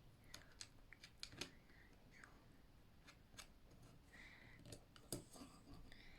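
Faint, scattered clicks and taps of plastic Meccano Junior construction-toy parts being handled and fastened with a toy screwdriver, with a brief squeak about four seconds in.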